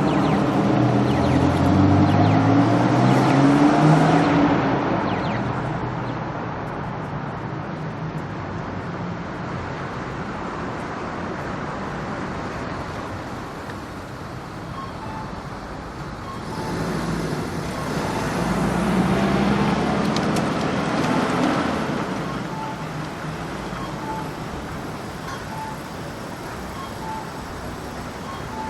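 Street traffic at a crossroads: vehicle engines pulling away and rising in pitch as they accelerate, at the start and again about two-thirds of the way through, over a steady traffic hum. From about halfway, a traffic-light crossing signal sounds short, evenly spaced beeps.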